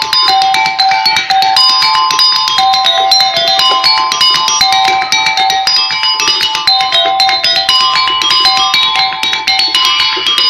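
An ensemble plays a melody in rehearsal: held, bell-like notes that change every fraction of a second, over a dense, continuous rattle of sharp clicks.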